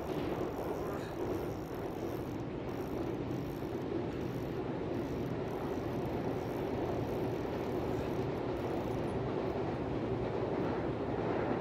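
Steady rumble of a passing train, running on without a break.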